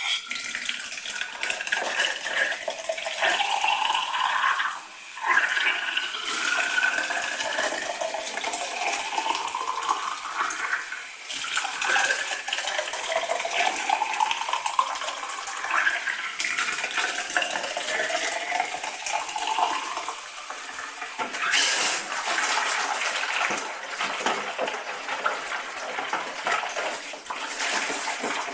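Warm water from a thermostatic mixer valve tap pouring into the Jobo CPE-2 film processor as it fills. The pitch of the pouring rises several times over a few seconds, with brief breaks in the flow between.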